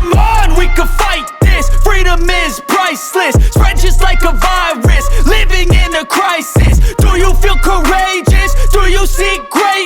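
Hip hop background music with a heavy, pulsing bass beat.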